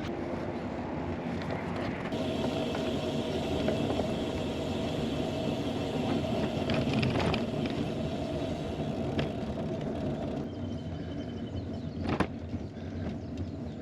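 Steady road noise while riding a touring bicycle, with a brief high tone near the end and one sharp click about twelve seconds in.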